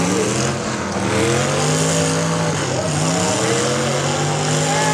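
Demolition derby car engines running and revving, several overlapping engine notes rising and falling in pitch again and again.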